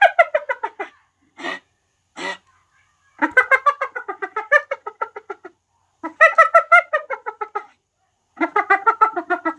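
Hyena giggling (its 'laugh'): four bouts of rapid, staccato, pitched yelps at about nine a second, some notes falling in pitch. Two short single calls come between the first two bouts.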